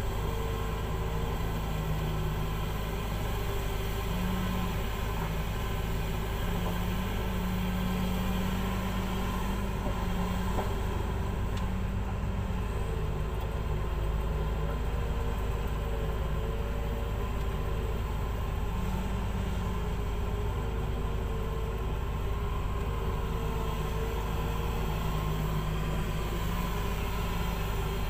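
Komatsu PC2000 mining excavator's diesel engine running under a working load over a steady low rumble, its note rising and falling several times as the machine digs and swings.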